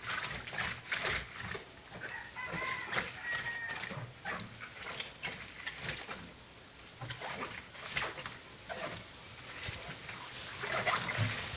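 Hands scrubbing and squeezing waterlogged, shredded paper against the ribbed washboard of a plastic laundry tub, an irregular run of wet rubbing, squelching and small splashes as the paper breaks down into papier-mâché pulp. A short pitched call, like a hen clucking, sounds in the background about two to four seconds in.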